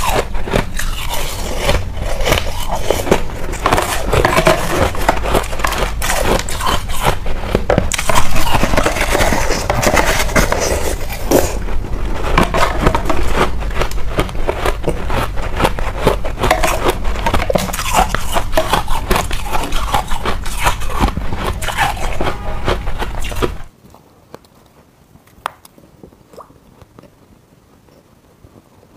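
Close-miked crunching of small pink ice pieces being bitten and chewed, dense and loud. It stops abruptly about 24 seconds in, leaving only a few faint clicks.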